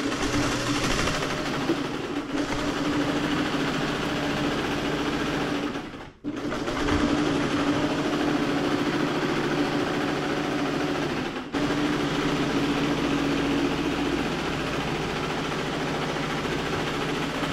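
Vintage electric sewing machine running steadily as it stitches vinyl and cloth seat-cover panels together into a seam. It stops briefly about six seconds in, then runs on, with another short break near eleven and a half seconds.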